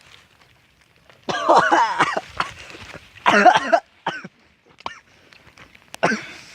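A person's voice in several loud, wordless bursts, like coughing and hacking: the loudest about a second in, another around three seconds in, then shorter ones.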